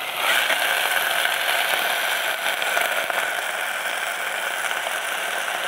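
Rice, paneer and onion frying in oil in a pressure cooker, a steady sizzle with a metal ladle stirring and scraping through it. The dry rice is being toasted in the oil before any water goes in.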